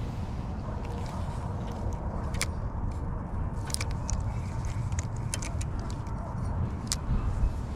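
A steady low rumble with scattered sharp clicks, a few coming in quick succession around the middle.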